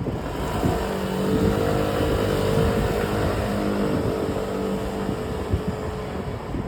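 A steady humming whine from a Giant Contend SL road bicycle, the abnormal noise the owner is recording. It sets in about a second in and fades near the end, over wind rushing on the microphone.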